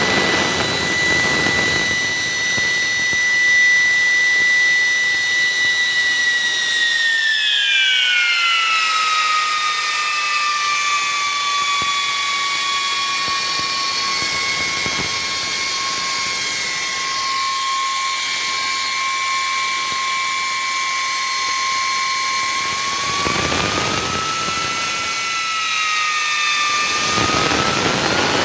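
3D-printed ten-stage axial compressor turbojet model spinning on compressed air from a blow gun: a high whine from the rotor over the hiss of the air jet. The whine drops in pitch about seven seconds in and holds lower, then rises again near the end as the air is given more.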